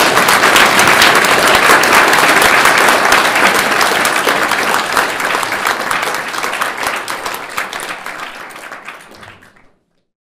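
Audience applauding. It is loudest at first, then slowly dies away and stops shortly before the end.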